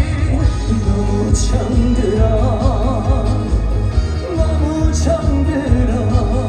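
A song performed live over a loud backing track: a vibrato-laden sung melody over a heavy bass beat, with cymbal crashes about a second and a half in and again near five seconds.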